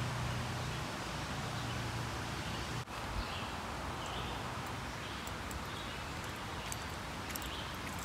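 Outdoor background ambience: a steady hiss with faint, short, high chirps repeating every second or so. A low hum cuts off sharply about three seconds in.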